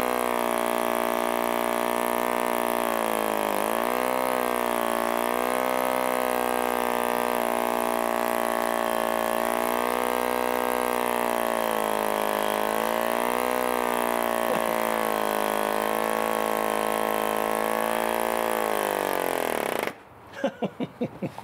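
1947 HP Series I 3.5cc spark-ignition two-stroke model aero engine running flat out with its propeller. Its pitch wavers up and down as the fuel runs low, then it slows and cuts out about twenty seconds in.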